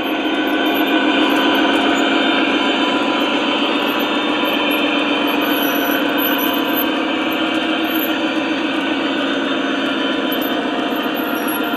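O scale model freight train running past, its cars rolling on the track with a steady rumble and a fast, dense clatter of wheels.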